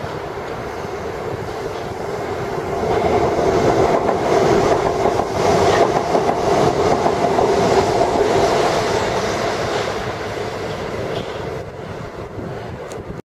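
Class 31 diesel locomotive's English Electric engine running hard under load as the train climbs, a steady drone that grows louder as the locomotive approaches and eases off after about ten seconds, with wheels clattering over the points.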